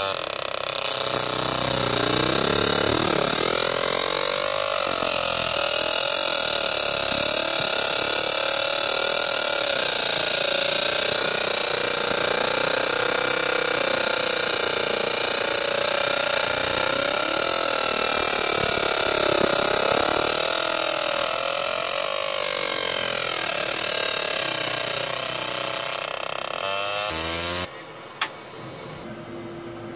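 Laser engraver marking the metal of an AR-15 lower receiver: a loud, steady hiss with tones that sweep up and down as the beam scans. It cuts off suddenly near the end, leaving a quieter steady hum and a single click.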